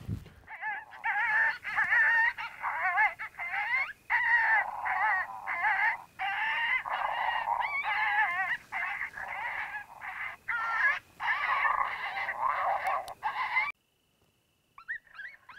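Coyote fight sounds from a predator call: a rapid run of high, wavering yelps, barks and howls, broken by short gaps. This is aggressive fight calling, used to draw in coyotes. It cuts off suddenly about two seconds before the end, and faint calls come back near the very end.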